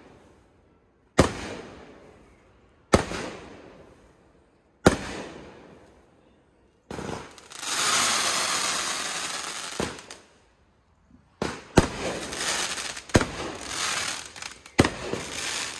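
Aerial fireworks bursting overhead: three single loud bangs about two seconds apart, each with a trailing echo, then a steady hiss lasting about three seconds as a gold burst falls, and near the end a quick run of bangs and crackle.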